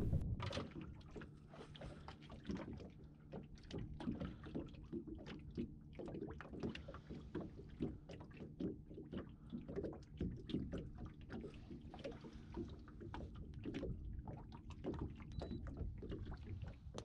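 Water lapping and slapping against the hull of a small drifting boat: irregular small taps and splashes over a faint low steady hum.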